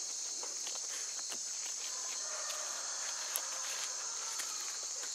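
Steady high-pitched insect chorus, with scattered light crackles of footsteps on dry leaves and twigs.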